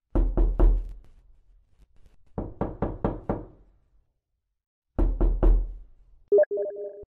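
Knocking, three quick knocks, then a run of about six, then three more. A brief pitched sound comes near the end.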